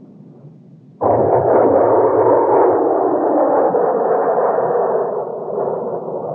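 Loud jet roar of an A-4 Skyhawk passing close. It cuts in abruptly about a second in, after a faint low rumble, holds strong, then slowly fades.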